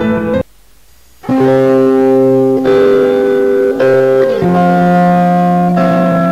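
A song with guitar playing. It cuts out for just under a second about half a second in, then comes back with held notes, one of which slides in pitch about four seconds in.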